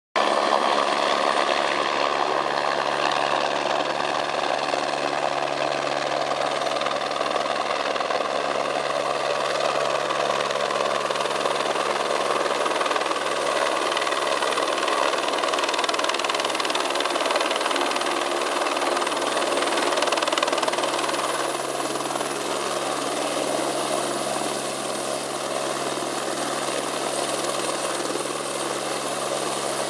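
Eurocopter AS350 Squirrel helicopter hovering low, its rotor and single turbine engine running steadily with a thin high whine over the rotor noise. It grows slightly quieter about two-thirds of the way through.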